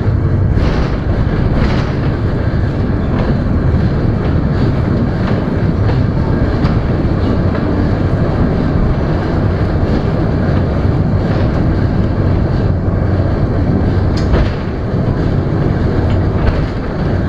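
Kintetsu Nishi-Shigi Cable funicular car running downhill: a steady rumble of its wheels on the track, with occasional clicks.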